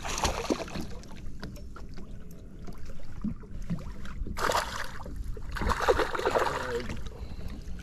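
Hooked smallmouth bass thrashing and splashing at the water's surface beside the boat, in bursts near the start, about four and a half seconds in, and loudest from about five and a half to seven seconds, over a steady low rumble.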